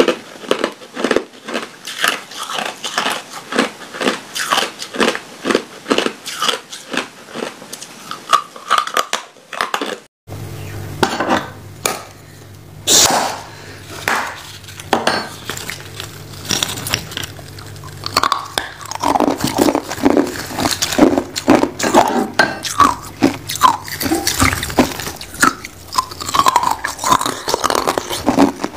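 Clear ice cubes crunched between the teeth, a fast run of crisp crunches. About ten seconds in the sound cuts to a metal tenderiser mallet knocking a slab of ice in a silicone mould, followed by more ice biting and crunching.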